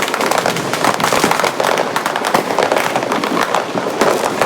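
Dense, continuous crackle of many firecrackers and fireworks going off together, a rapid irregular rattle of small bangs with no let-up.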